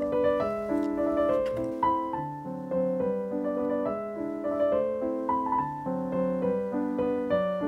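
Background piano music: a light melody of single notes over chords, played at a steady pace.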